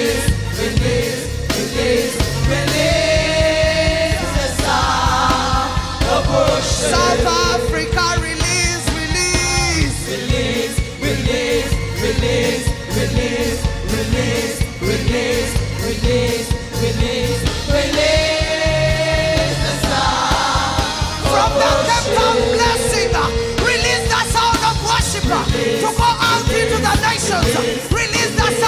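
Live gospel worship music: voices singing long held notes over a band with a steady beat.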